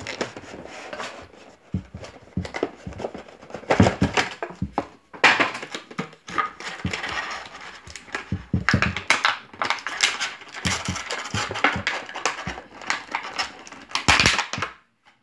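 Clear plastic blister packaging being bent, pulled and torn open by hand, crinkling and crackling irregularly with sharp snaps now and then.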